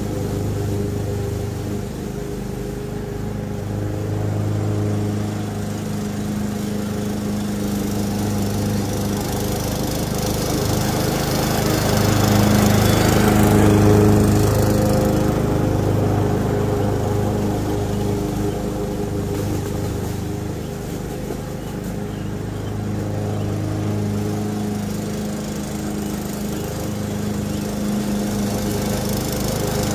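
Craftsman gas walk-behind lawn mower running steadily while cutting grass, growing louder as it passes close about halfway through, then fading as it moves away.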